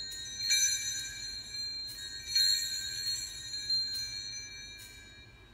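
Altar bells, a cluster of small hand bells, shaken several times at the elevation of the chalice after the consecration, their high ringing dying away toward the end.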